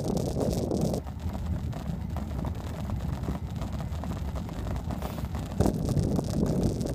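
Wind buffeting the microphone of a bicycle-mounted camera as the bike rolls along, over a low rumble with small rattles from the road. The wind hiss eases about a second in and picks up again near the end.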